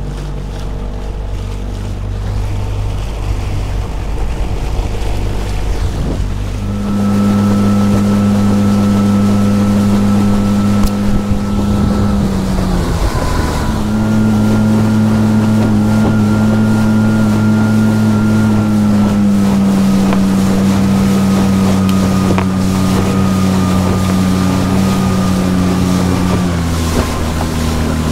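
Mercury outboard motor on a microskiff running steadily at about half throttle, held there for its break-in, with wind on the microphone and the hull slapping through choppy water. About seven seconds in it gets louder; near the middle its pitch sags briefly and recovers, and it drops slightly near the end.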